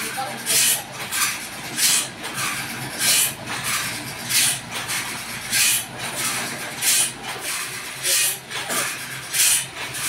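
Sawmill machinery running: a regular swishing hiss repeats about every 0.6 s, every other swish louder, over a faint low hum.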